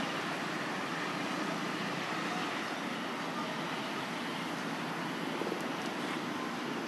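Steady, even rushing background noise of road traffic, with no distinct events standing out.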